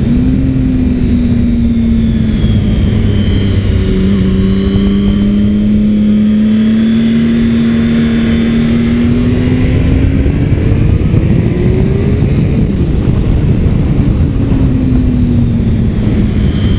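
Triumph Sprint ST 1050's three-cylinder engine running under way at steady revs, its note climbing about two-thirds of the way through and then dropping back, over a heavy low rumble of wind on the microphone.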